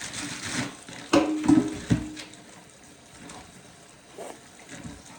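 A person eating close to the microphone: wet chewing and mouth noises, loudest about one to two seconds in, then much quieter.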